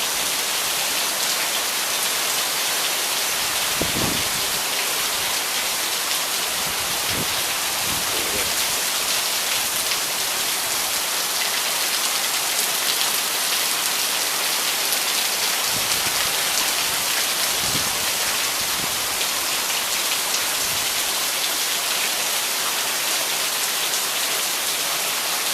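Heavy rain pouring down steadily on the ground and surfaces, an even hiss at a constant level, with a few faint low thumps here and there.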